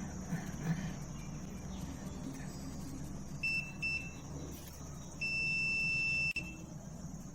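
Digital multimeter's continuity beeper sounding: two short beeps about three and a half seconds in, then a steady beep of about a second a little after five seconds. Each beep shows that the probes find an unbroken path between a power-cord plug pin and its wire.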